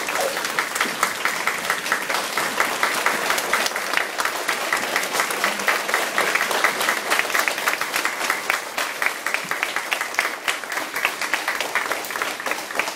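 A large crowd of schoolchildren applauding, with many hands clapping densely together.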